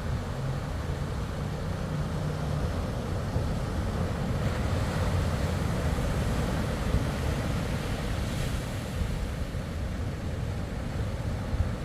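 Surf breaking and wind buffeting the microphone, with the twin Suzuki four-stroke outboards of a ski boat running under power as it punches out through the waves.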